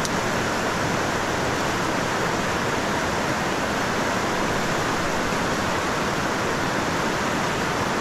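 Steady rush of a strong river rapid, whitewater pouring over rock slabs.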